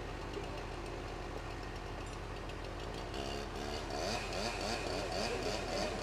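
Two-stroke chainsaw running at low speed, then from about three seconds in running faster and louder, its pitch rising and falling about three times a second as it cuts into the conifer trunk.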